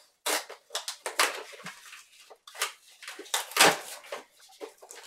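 Small cardboard blind boxes being torn open by hand, with irregular ripping and rustling of the packaging.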